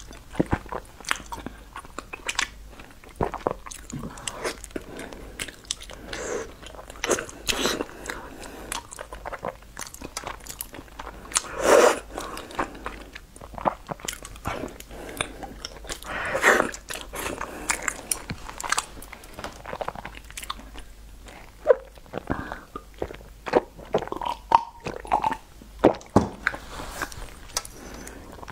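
Close-miked eating of slippery, gelatinous food: wet chewing and mouth smacks with many short sharp clicks, and two longer, louder slurps near the middle.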